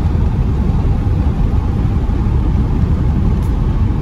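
Steady low rumble of road and engine noise inside the cabin of a car under way.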